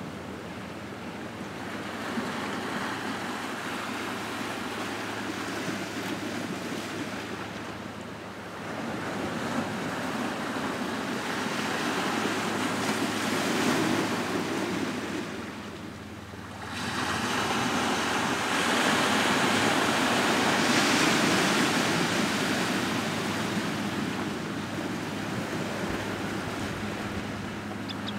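Small waves breaking and washing over a cobble-and-boulder beach, the surf swelling and ebbing in a continuous wash. It dips briefly just past halfway, then is loudest after that.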